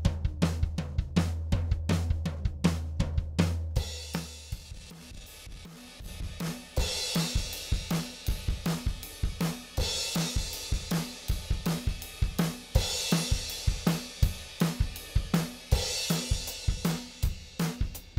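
Recorded drum kit playing a steady groove of kick, snare and hi-hat, with a cymbal wash swelling about every three seconds. A low held bass tone sounds under the first four seconds and then drops out.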